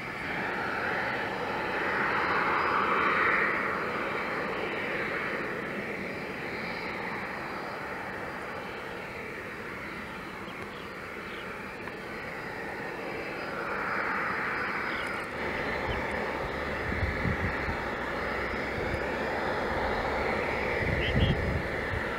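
Jet engine noise from a Boeing 767-300 freighter during pushback: a steady rushing whine that swells twice. A few low thuds of wind on the microphone come in the last few seconds.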